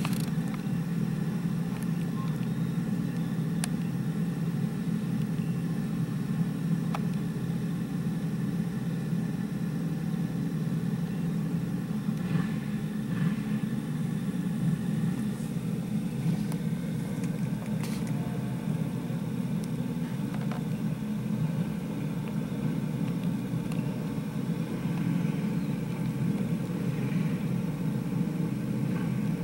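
Several go-kart engines running together in a steady drone, without any big rises or falls in pitch.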